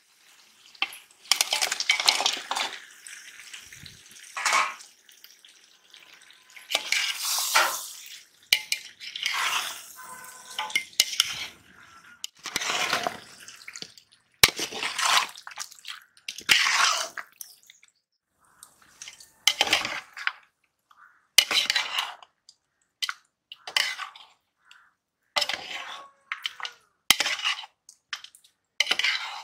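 A metal spoon scraping and clattering against a large aluminium cooking pot while duck curry and rice are stirred together. It comes in irregular bursts with a few sharp clinks.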